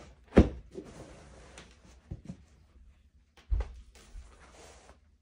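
An exercise mat being flapped open and laid down on the floor: a sharp thump about half a second in, two softer knocks around two seconds, and another loud thump at about three and a half seconds, with rustling in between.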